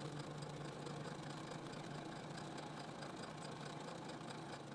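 Janome computerized sewing machine running steadily, stitching through cotton fabric, with an even mechanical hum and regular faint ticking of the needle.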